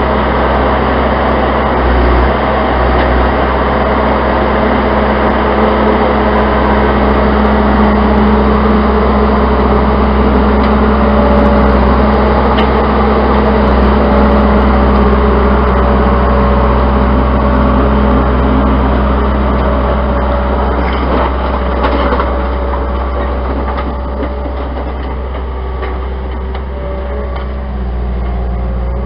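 Case 90XT skid steer loader's diesel engine running steadily at working speed while it handles hay bales with its bale claw, a little quieter in the last several seconds.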